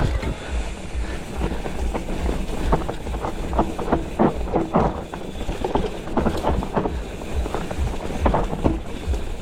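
Mountain bike riding noise on a dirt trail: wind buffeting the microphone and the bike rattling and knocking over rough ground.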